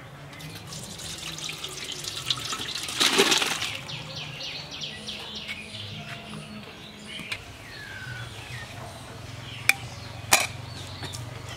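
Thick fish curry poured and scraped out of a metal wok into a steel bowl, a wet sloshing pour loudest about three seconds in. Near the end, two sharp metal clinks as a steel plate is set on a cooking pot as a lid.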